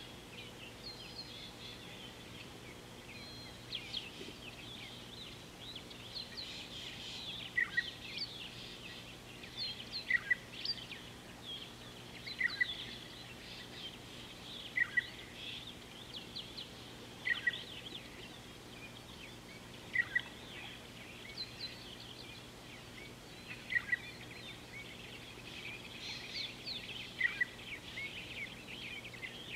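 Birds calling: a busy chorus of high chirps and trills, with one bird repeating a short downward-sliding call about every two and a half seconds, the loudest sound. A faint steady low hum runs underneath.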